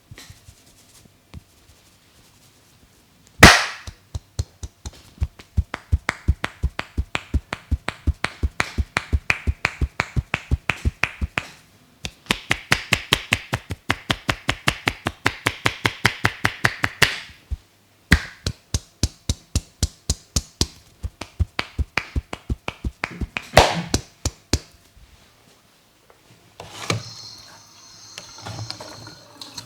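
A massager's hands striking a person's head in quick rhythmic percussion strokes, about four taps a second. The strokes come in three long runs with short breaks, opening with one loud slap, followed by softer rubbing of hands in hair near the end.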